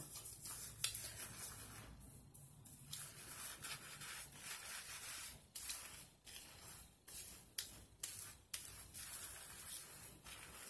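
Hands scrubbing shampoo lather through hair: irregular wet rubbing and squishing strokes.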